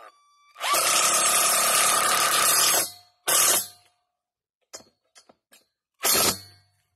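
Power drill driving a screw into a wooden garden-bed board: one run of about two seconds with a steady whine, then two short bursts with a few small clicks between.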